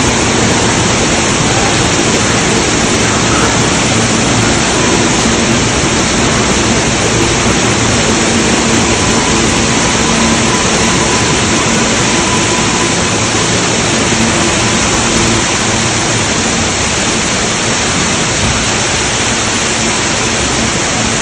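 Floodwater pouring from a subway station ceiling in a heavy cascade onto the platform edge and tracks: a loud, steady rush of falling water. Under it, a faint hum from a subway train pulling into the station.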